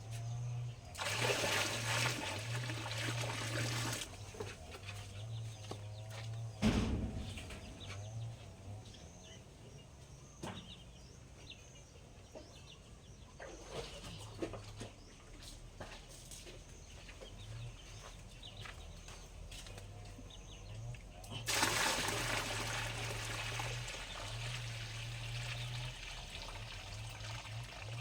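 Two long bursts of rushing, water-like noise, one near the start and one covering the last six seconds, with a sharp knock about seven seconds in. Chickens cluck in between, over an on-off low hum.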